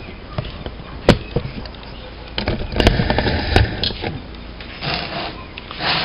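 Handling noises as a potted plant in its polythene nursery bag is set into a plastic pot and shifted about: a sharp knock about a second in, then scraping and rustling with two sharp clicks around the middle, and more rustling near the end.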